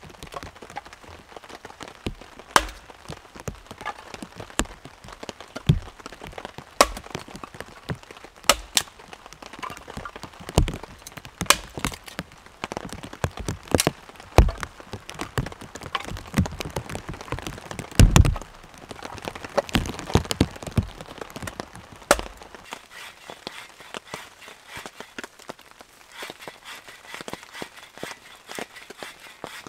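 A small axe splitting firewood into kindling on a chopping log: sharp, irregular chops and knocks about once a second, with light rain falling. The chopping stops about three-quarters of the way through, leaving only the rain.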